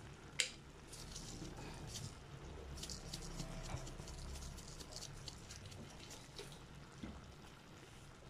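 Faint bubbling and crackling from a pan of jackfruit and vegetables simmering in coconut milk, with one sharp click less than half a second in.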